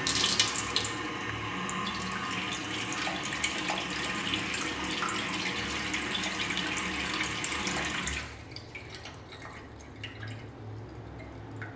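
Sensor-activated tap of a stainless steel wash unit running a stream of water into its steel basin, then shutting off abruptly about eight seconds in.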